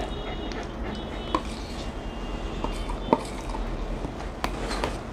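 A metal spoon scraping thick chicken chaap gravy out of a takeaway tub onto a steel plate, with scattered light clinks and two sharper clinks about a second and a half and three seconds in.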